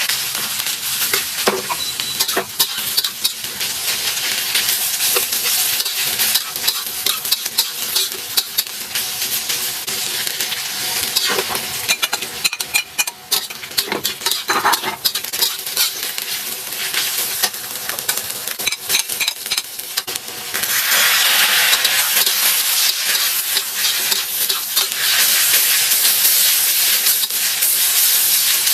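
Food sizzling in a hot pan while a spatula stirs and scrapes against the metal, with many quick clicks. The sizzle grows louder about three-quarters of the way through.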